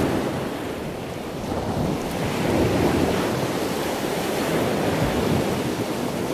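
Sea surf: waves washing in, a steady rush that swells and eases.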